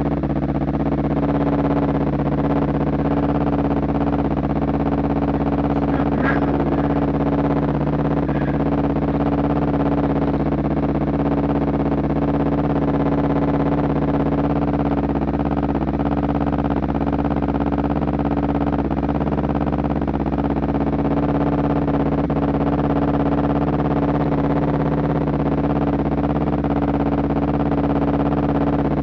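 Motorcycle engine idling steadily, an even, unchanging drone.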